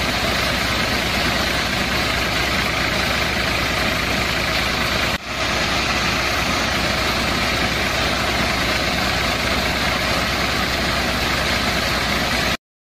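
Small electric motor driving a homemade miniature wheat thresher's drum through a rubber-band belt, running with a steady whir and rattle while wheat is fed in. It dips briefly about five seconds in and cuts off suddenly near the end.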